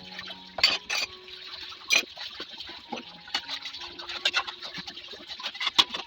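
Water running and splashing in a kitchen, with repeated clicks and clatters of kitchenware.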